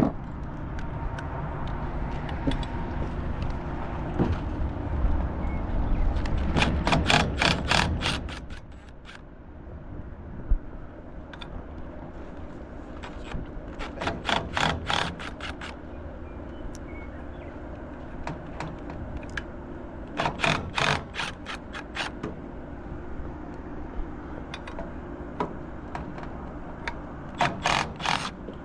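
Socket-wrench ratchet clicking in four short runs of quick, even clicks as bolts are worked loose, over a low rumble that is louder for the first eight seconds.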